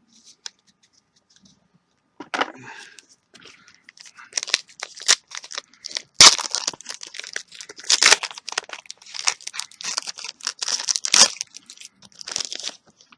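A trading card booster pack wrapper being torn open and crinkled by hand: a long run of irregular crackling tears and rustles that starts about two seconds in, with its sharpest rips near the middle.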